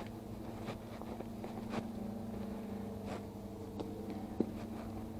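A steady machine hum with a low pitched drone and a higher overtone, with a few faint clicks scattered over it.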